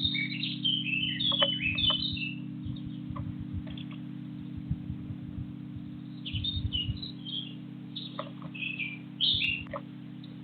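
Small garden birds chirping in quick runs of short, high notes, a busy run at the start and another from about six seconds in, with scattered soft low knocks and a steady low hum underneath.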